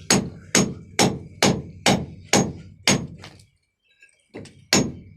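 Hammer blows in a steady beat of about two a second. They stop for about a second past the middle, then start again.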